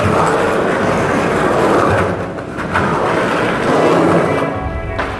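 Skateboard wheels rolling over rough concrete, a steady loud rumble.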